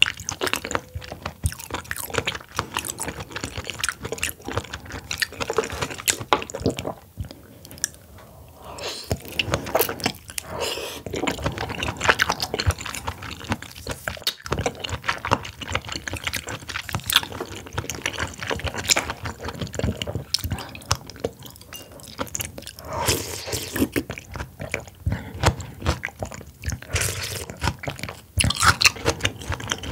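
Close-miked wet chewing and biting of oysters, a dense run of small clicking mouth sounds with brief pauses.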